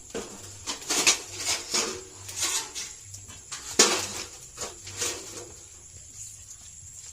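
A series of irregular sharp knocks and clatters, loosest in the first five seconds and sparser after, over a faint steady high-pitched tone.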